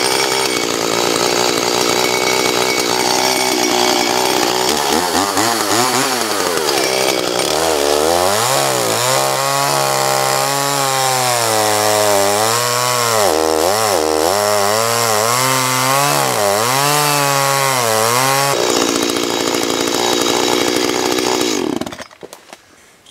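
Echo CS370 two-stroke chainsaw running at full throttle through a log, its engine note wavering up and down as it labours in the cut, then running steady out of the wood about 18 seconds in and dropping away near the end. The chain is super dull with teeth filed at odd angles, so the saw cuts poorly and jogs off to the right.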